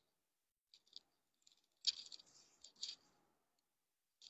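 Cloth rustling as a garment is handled and unfolded, in short hissy bursts with the loudest stretch about two seconds in.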